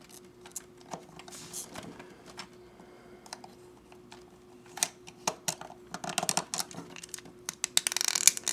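Small plastic model-kit parts clicking and tapping as they are handled and pressed together, the clicks coming thicker and mixed with rustling about six seconds in and again near the end.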